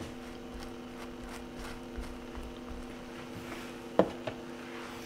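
Butter knife spreading soft butter over a slice of toasting bread, a faint scraping, over a steady hum. A sharp click about four seconds in, with a smaller one just after.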